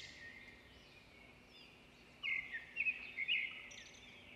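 Songbirds chirping in a background ambience, faint at first, with a louder run of quick chirps from about two seconds in.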